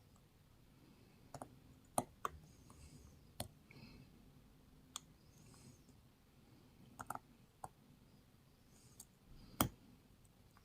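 Lock pick and tension wrench working the pins of an Ace five-pin padlock with anti-pick pins: about a dozen sharp, irregularly spaced metallic clicks with faint scraping between them, the loudest click near the end.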